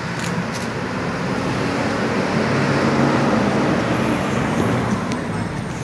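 A motor vehicle passing on a nearby road: engine and tyre noise that grows to a peak about three seconds in, then fades.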